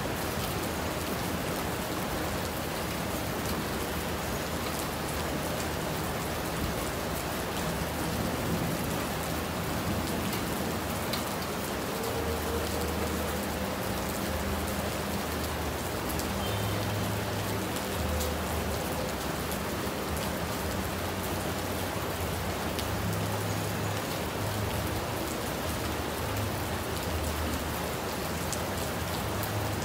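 Steady rain falling, with fine scattered drop taps throughout. A low hum comes and goes underneath from about twelve seconds in.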